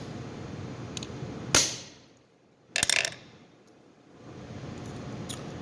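A hammer striking a punch to drive a pivot pin out of a vintage Swiss Army knife: one sharp blow about a second and a half in, then a second, clattering impact a little over a second later. The blow cracks the knife's deteriorated fiber scale a little.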